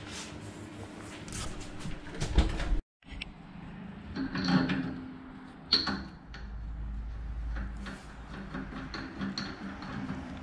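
Clunks, knocks and clicks of a spoked motorcycle rear wheel being handled and mounted onto a wheel balancer, with two louder metal clunks in the middle. A low rumble follows for a couple of seconds.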